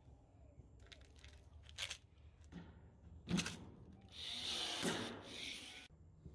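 Pop rivets being set in a gutter end cap: a few light clicks, one sharp snap about three seconds in, then a couple of seconds of rasping, whirring noise.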